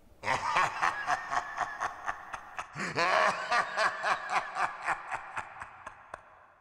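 Drawn-out laughter in quick, even pulses, about four a second, breaking off and starting again louder about three seconds in, then fading away.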